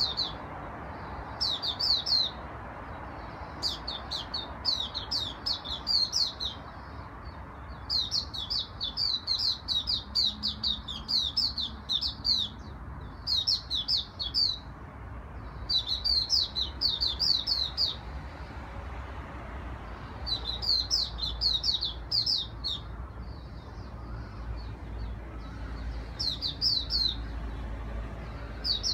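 A caged songbird singing: repeated short phrases of rapid, high, down-slurred notes, each phrase lasting a second or two, with short pauses between them and a longer lull a little past halfway.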